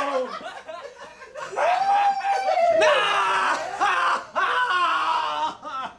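A young man screaming in anguish in long, drawn-out wails, while onlookers laugh and snicker at him.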